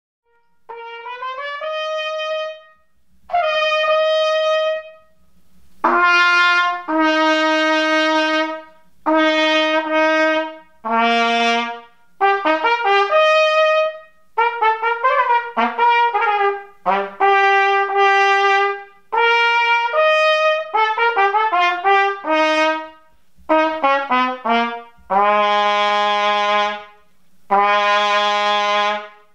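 Trumpet played through a 3D-printed mouthpiece as a test: a sequence of held notes and quick runs of short notes, with brief breaths between phrases and lower sustained notes near the end.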